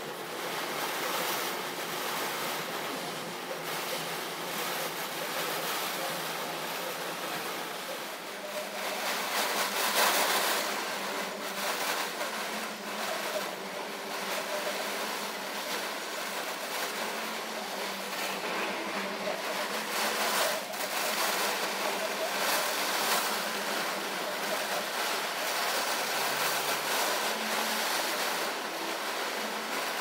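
Heavy storm rain and strong gusting wind: a steady rushing hiss that swells in gusts about ten and twenty seconds in.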